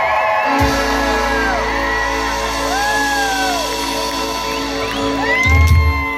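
Norteño band playing live, the button accordion holding sustained chords over bass and drums, with hits about half a second in and again near the end. Crowd whistling and whooping over the music.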